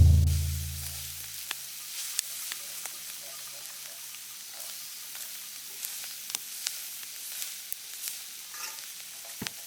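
Mapo tofu ingredients sizzling and frying in a pan over a wood fire, with faint scrapes and clicks of stirring. A loud deep boom fades away over the first second and a half.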